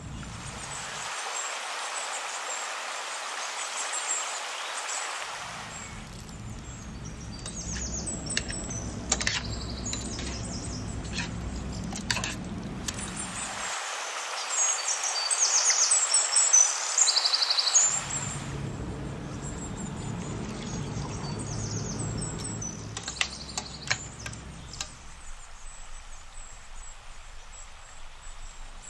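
Small birds chirping again and again, most densely around the middle, over a steady hiss that changes abruptly a few times.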